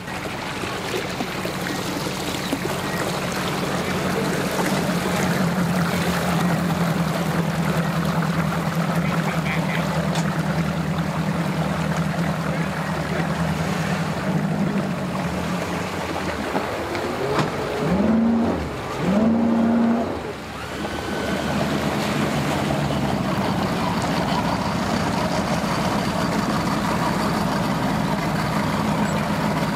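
Outboard motors on bass boats running in gear as the boats are powered onto their trailers, props churning the water into a steady wash under a steady engine hum. Twice, a bit past the middle, the pitch rises briefly, the loudest moments.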